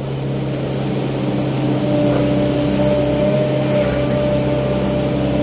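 Sumitomo S265 excavator's diesel engine running steadily under load as the boom lifts the bucket out of the trench, with a steady hydraulic whine joining about two seconds in.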